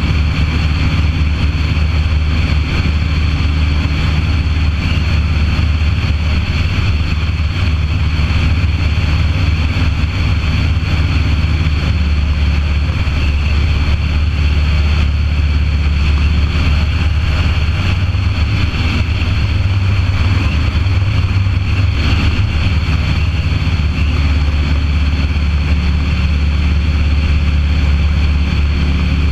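Ultralight aircraft engine and propeller running steadily in cruise flight: a constant low drone mixed with rushing wind over the microphone.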